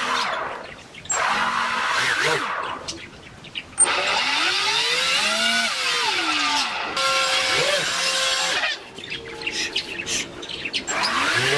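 Small brushless outrunner motors spinning propellers as they are throttled from an RC transmitter, whining and rushing; the whine sweeps up and then down in pitch several times as the throttle is raised and lowered, holding steady for about a second in the middle.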